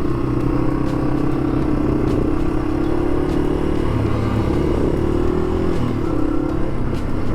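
Yamaha TW200's single-cylinder four-stroke engine running steadily under way, its pitch shifting briefly about four and six seconds in.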